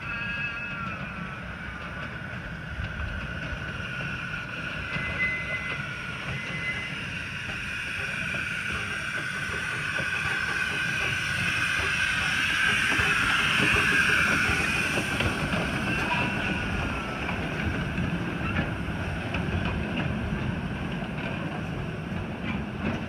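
A 7.25 in gauge Tinkerbell-class live steam locomotive and its ride-on cars approaching and running past. The sound grows steadily, is loudest about halfway through as the engine passes, then eases as the cars roll by.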